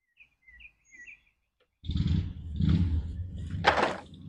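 Faint bird chirps, then from about two seconds in loud rustling of plastic shopping bags being rummaged through by hand, with low handling rumble and a sharp crinkle near the end.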